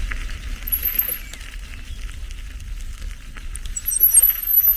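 Riding a bicycle: wind buffeting the microphone over tyre and road noise, with brief high-pitched chirps about a second in and again near the end.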